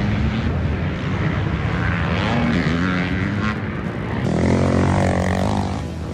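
Racing ATV engine running hard, its pitch rising and falling as it accelerates and eases off.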